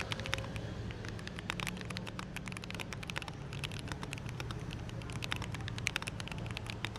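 Mechanical keyboard being typed on: rapid, irregular key clicks, several a second, over a steady low hum.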